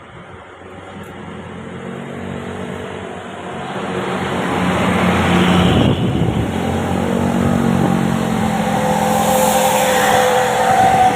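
A tour bus approaching and passing, its engine and tyre noise growing steadily louder. Near the end, two steady high tones start up, the beginning of the bus's telolet air horn.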